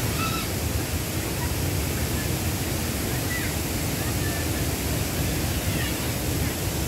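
Steady rushing of a shallow, fast-flowing stream over stones, with a few short high chirps above it.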